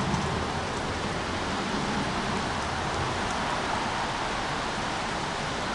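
Steady rain, an even hiss with a low rumble underneath.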